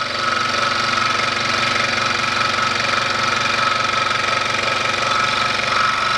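Ryobi 16-inch variable-speed scroll saw running at full speed, its blade going up and down as it cuts into a wooden workpiece: a steady whine over a fast, even rattle.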